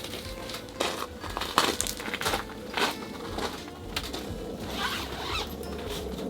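Irregular crinkling and rustling with sharp clicks and taps, like plastic food packaging being opened and handled during meal preparation.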